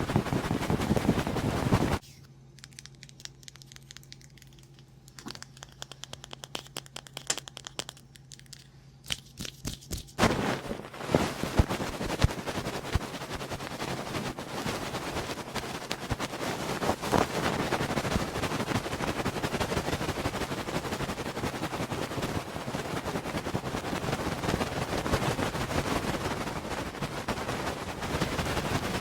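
Close-miked ASMR ear-cleaning sounds: a loud rubbing on the microphone, then a quiet stretch with a low hum and scattered clicks, then dense crackling and scratching from about ten seconds in.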